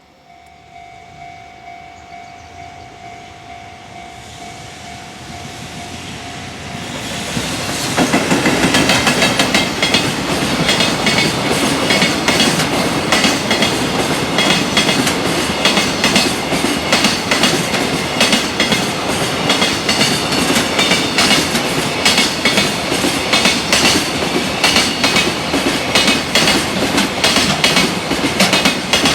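Freight train passing close at speed, building from a distant approach with a faint steady whine into a loud rush at about eight seconds in. Its wheels then clack rapidly and continuously over the rail joints.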